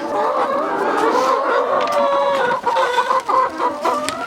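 A flock of chickens clucking, many overlapping calls at once.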